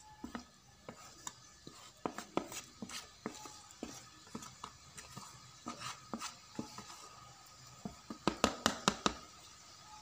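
Spatula scraping and clicking against a metal wok while stirring grated coconut, in irregular strokes, with a quick run of about six sharp knocks near the end.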